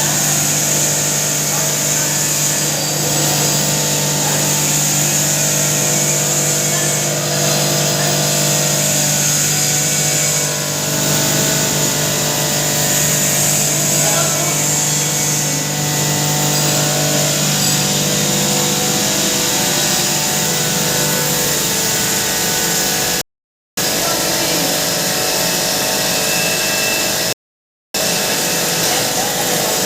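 Pulverizer grinding machine running: a steady loud whir with a strong high hiss. A low hum in it fades out partway through, and the sound cuts out completely twice, briefly, near the end.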